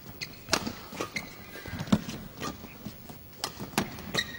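Badminton rally: rackets strike the shuttlecock with sharp cracks about six times, at uneven intervals, amid the players' footsteps and brief shoe squeaks on the court.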